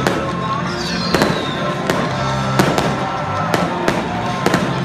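Fireworks going off in a rapid series of sharp bangs, about two a second, with music playing underneath.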